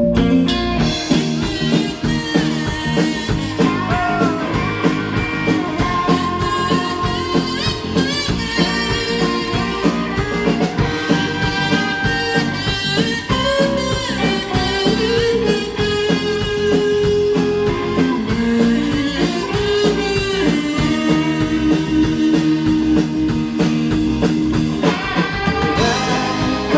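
Live rock band playing an instrumental passage, with guitar to the fore over steady drums.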